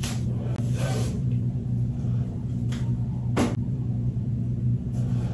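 A steady low electrical-sounding hum, with a few brief scratchy rustles and clicks, the sharpest about three and a half seconds in.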